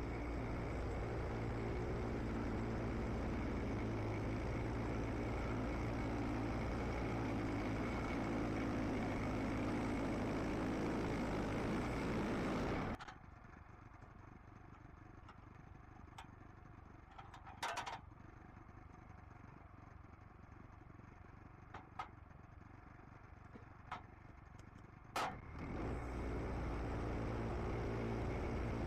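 An engine running steadily stops abruptly a little under halfway through. A quiet stretch with a few scattered knocks and clicks follows, and the engine sound returns near the end.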